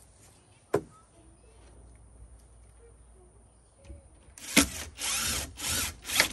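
Cordless drill driving screws into wooden fence boards, running in several short bursts from about four and a half seconds in. A single sharp knock comes near the start.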